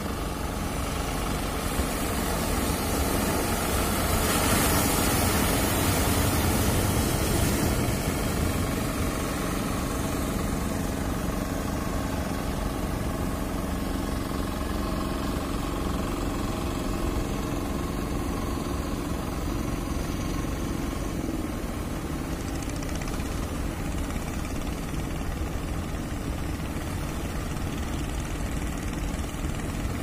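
Surf washing onto the beach, with one wave louder a few seconds in, over a steady engine drone from fishing boats out on the water.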